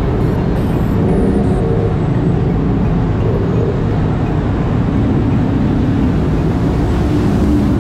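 Kawasaki Versys motorcycle engine running steadily at low speed as the bike rolls across a ferry's vehicle deck.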